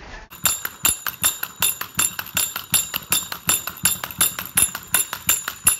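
Toy monkey clapping its small brass cymbals together: a rapid, even clash about five or six times a second, each strike ringing briefly. It starts about a third of a second in.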